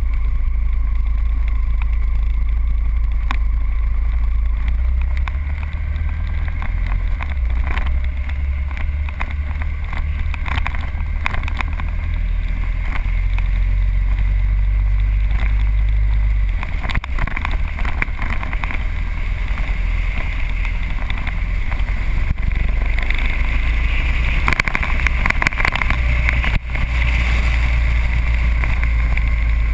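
Motorcycle riding at speed on a winding road: heavy wind rumble on the camera microphone, with the bike's engine running underneath.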